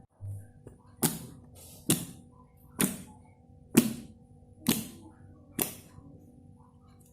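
Background music with a steady beat: sharp clap-like hits about once a second over held tones.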